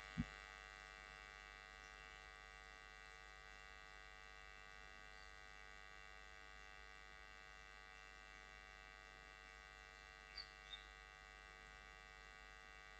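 Near silence: a faint steady electrical hum and buzz from the recording setup, with a single mouse click just after the start and two faint ticks about ten seconds in.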